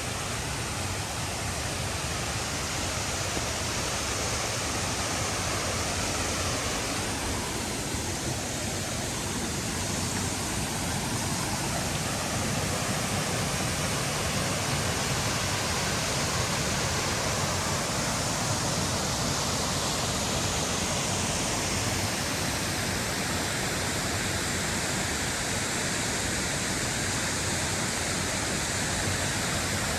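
Steady rush of the Oirase mountain stream, water pouring over rocks and rapids.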